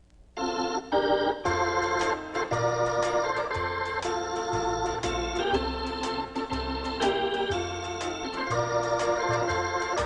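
Instrumental introduction to a gospel song: sustained organ-like keyboard chords over a stepping bass line, starting suddenly about half a second in after a silence.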